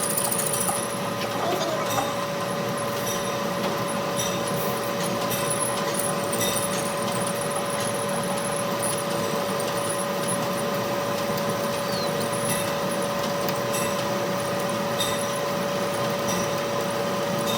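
A machine motor running steadily with a constant whine over a hiss.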